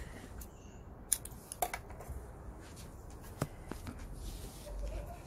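Scissors snipping cord and small handling clicks while a mesh fish trap is tied up by hand: a handful of short, sharp clicks spread through, over a low background rumble.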